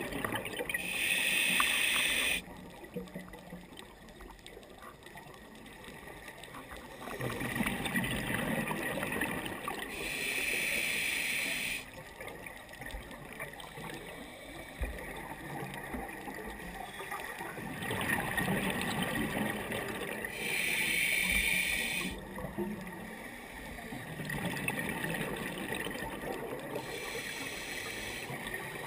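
Scuba diver breathing through a regulator, heard underwater: four short, sharp hisses of inhalation, each followed by a few seconds of low, rumbling bubbling as the breath is let out, in a slow, even rhythm.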